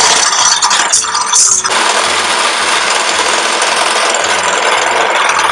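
Electric hand mixer whipping aquafaba in a stainless steel bowl: uneven for the first second and a half, then a steady, loud whirr as the liquid foams up.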